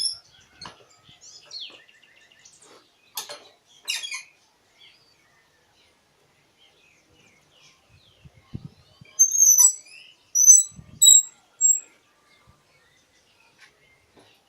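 Light knocks and clicks of the glued frame parts being set into the clamps, then a handful of short, high chirps or squeaks about nine to twelve seconds in, mixed with a couple of dull thumps; the chirps are the loudest sounds.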